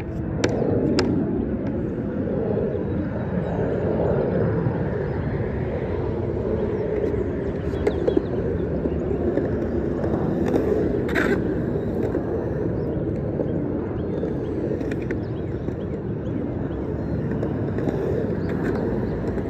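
Skateboard wheels rolling and carving across a concrete bowl, a steady rumble that holds throughout, with a few sharp clacks of the board: two close together near the start and one about eleven seconds in.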